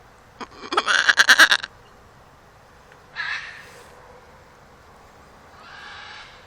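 An animal bleating: one loud, wavering bleat about a second in, a shorter call about three seconds in, and a faint one near the end.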